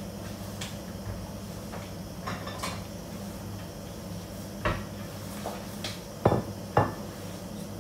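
A handful of short clinks and knocks of kitchenware such as pans and utensils, the two loudest about half a second apart near the end, over a steady low hum.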